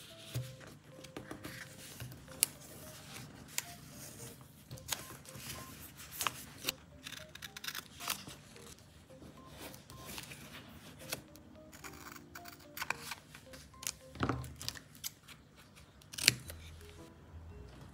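Scissors snipping paper tape, with small clicks and rustles of paper being handled, over soft background music.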